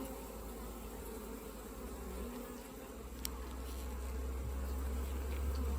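Honeybee colony buzzing steadily around an opened hive during an inspection, growing slightly louder toward the end, with a single faint click about three seconds in.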